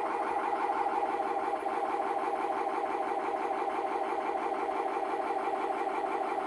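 A steady, rapidly pulsing buzz heard through a video call's audio, holding the same level throughout.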